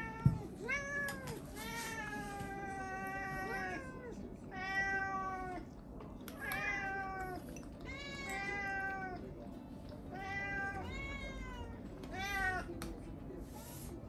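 Domestic cats meowing over and over, about ten long meows at differing pitches, some bending up and down. A single sharp knock sounds just after the start.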